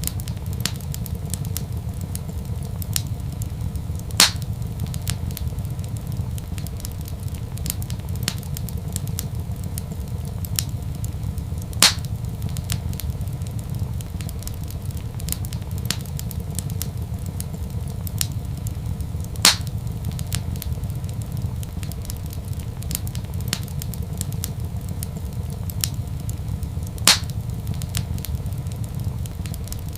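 Wood fire crackling: a steady low rumble under a continual scatter of small crackles, with four louder pops evenly spaced about seven and a half seconds apart.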